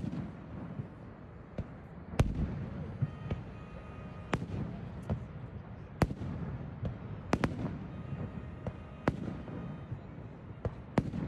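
Fireworks going off in a display: sharp, loud bangs about every one and a half to two seconds, with smaller pops and crackles between them, over a steady low background noise.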